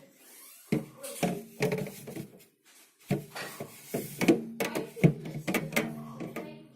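A plastic part being handled and pushed into place inside a small fridge: a run of knocks, clicks and scrapes of plastic against the fridge's interior.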